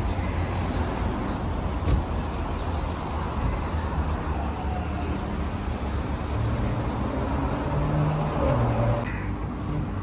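Street ambience: a steady rumble of road traffic, with a faint passing engine tone near the end.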